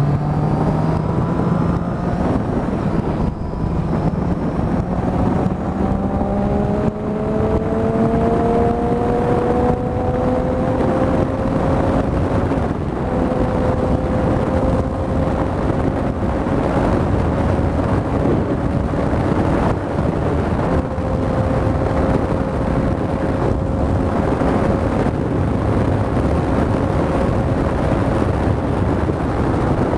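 Triumph Street Triple's three-cylinder engine under way. It rises in pitch through the gears, with a shift about seven seconds in, then holds a near-steady note at cruising speed. Heavy wind and road rush on the on-board microphone runs under it throughout.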